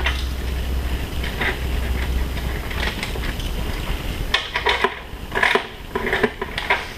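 Hand wrench clinking and clicking against the nuts and bolts under a drum sander's base as they are loosened, in scattered metallic ticks with a denser run of clicking past the middle and near the end, over a steady low hum.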